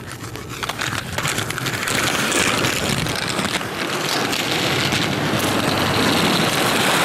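Inline skate wheels rolling fast over rough concrete pavement: a steady gritty rolling noise that grows louder over the first two seconds and then holds, with a few sharp clicks in the first second.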